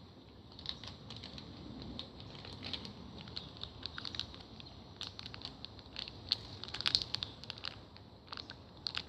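Plastic zip pouch crinkling and crackling in the hands as someone struggles to pull it open, a run of faint, irregular crackles and clicks that gets busier in the second half.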